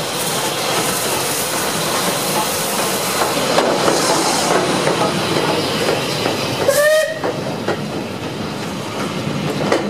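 SR Merchant Navy Class steam locomotive No. 35028 Clan Line passing close by with its coaches: steam hissing over the running of wheels on the rails. A brief pitched squeal sounds about seven seconds in.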